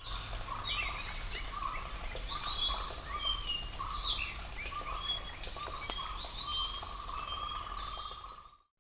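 Several wild birds calling and singing together, many short chirps and sliding notes over a steady low background rumble; it cuts off abruptly near the end.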